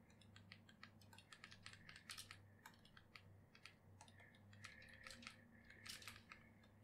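Near silence with faint, irregular clicks and taps from a computer keyboard and drawing-tablet pen, over a faint steady hum.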